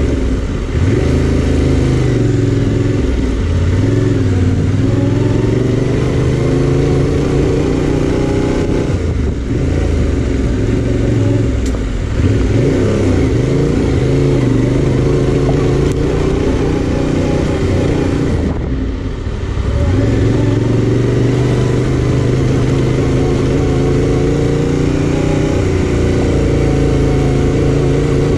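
2021 Yamaha Tenere 700's parallel-twin engine running under load as the motorcycle is ridden, its pitch rising and falling with the throttle. It eases off briefly twice, about a third and about two-thirds of the way in.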